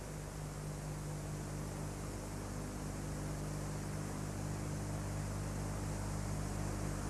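Steady hiss with a low electrical hum underneath, and no other sound, growing slightly louder.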